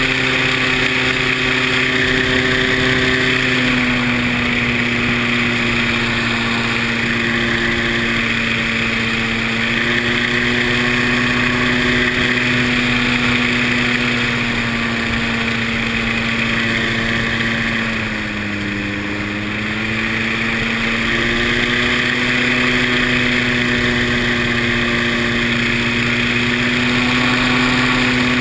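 An engine running steadily at a constant pitch. It eases off briefly about 18 seconds in and picks back up about two seconds later.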